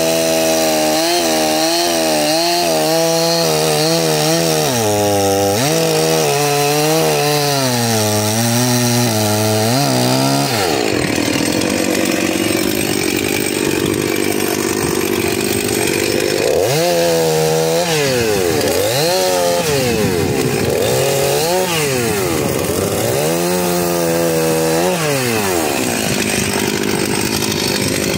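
Two-stroke petrol chainsaw cutting through logs at full throttle. The engine note sags under load and climbs again, over and over. In the middle stretch it gives way for several seconds to a steadier, less distinct rasp.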